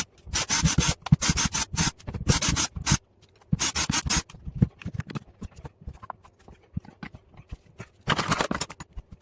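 Brisk rubbing or scraping strokes on a plastic power-tool battery pack, about three or four a second, then scattered small clicks and handling knocks, with one more short burst of scraping near the end.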